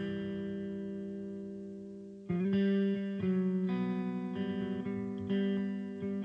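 Instrumental song intro on guitar. A chord rings out and fades for about two seconds, then notes and chords are picked one after another.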